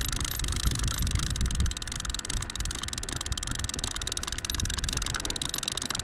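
Low, uneven rumble of wind buffeting the microphone over a steady hiss, strongest in the first two seconds.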